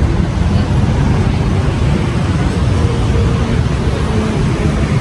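City street traffic, cars and motorbikes passing, heard as a steady low rumble.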